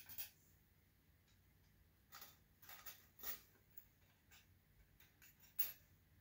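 Faint scattered clicks and light rattles of fingers sorting through tiny model parts, small guardrail and ladder pieces, on a wooden board. The sharpest click comes a little before the end.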